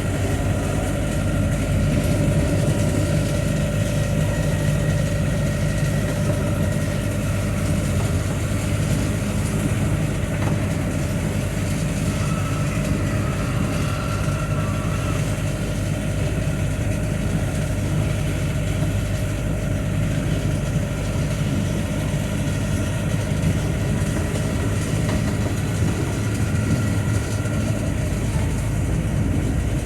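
Steady engine hum and road noise heard from inside a vehicle's cab while driving on a rain-wet highway.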